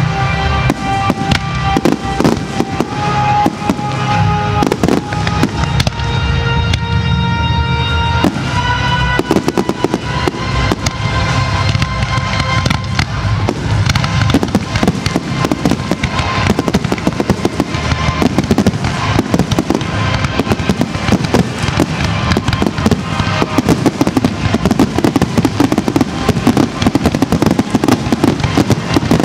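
Fireworks display going off steadily, with a constant run of shell bursts and crackles over recorded music. The music's held notes stand out in the first part, and the bangs come thicker and denser in the second half as the barrage builds.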